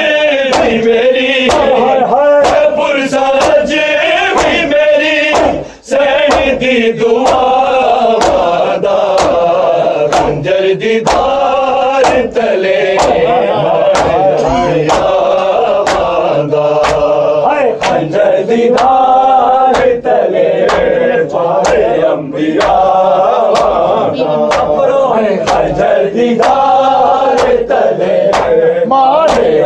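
A group of men chanting a Punjabi noha (mourning lament) in unison, over a steady beat of matam, hands striking chests, about once every three-quarters of a second.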